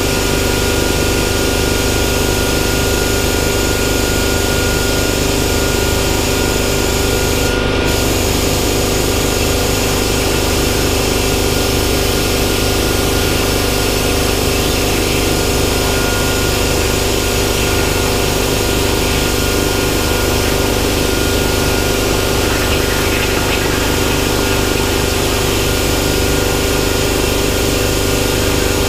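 Hypertherm Powermax65 plasma cutter on a CNC table cutting sheet steel: a steady harsh hiss from the arc over a constant machine hum. The high hiss cuts out for a moment about eight seconds in.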